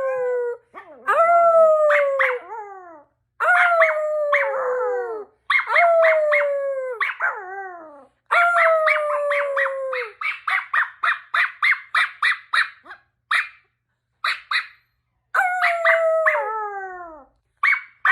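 Dog howling: a run of long howls, each falling in pitch. About halfway through comes a quick series of short yips, about four a second, then a few single yips and one more long howl.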